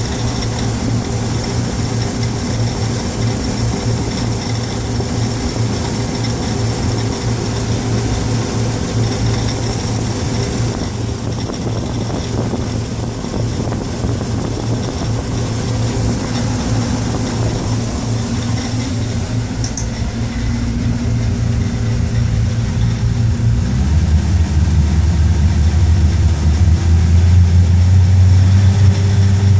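MerCruiser 350 Mag 5.7-litre V8 marine engine running steadily, a sound its owner calls bad. About 24 seconds in its note changes and it gets louder as the engine speed changes.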